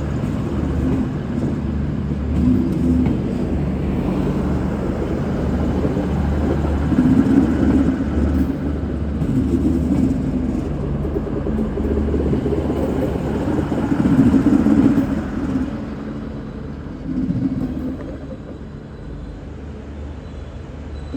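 V/Line VLocity diesel multiple unit running past, a steady low engine rumble with repeated swells, dying away over the last few seconds.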